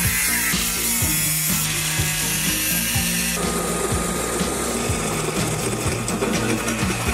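Abrasive cut-off disc grinding through a steel bracket with a bright, hissing sound. About three and a half seconds in, it gives way to a twist drill bit boring through the steel. Background music with a steady beat plays underneath.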